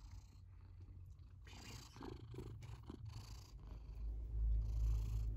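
Domestic cat purring close up, the purr growing louder about four seconds in.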